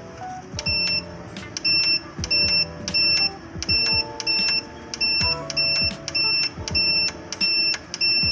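Electronic buzzer of a Growatt 5000 ES solar inverter beeping repeatedly, short high-pitched beeps about one to two a second, starting about half a second in, over background music.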